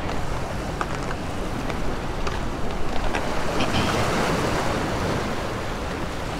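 Surf washing and splashing against the jetty rocks, with wind buffeting the microphone: a steady rushing noise.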